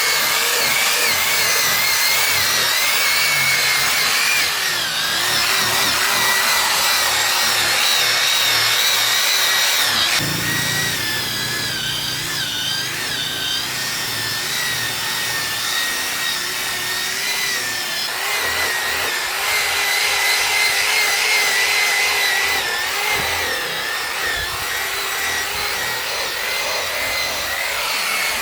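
Handheld electric power tool running steadily with a high, slightly wavering whine, its load and note shifting about ten seconds in and again a few seconds later.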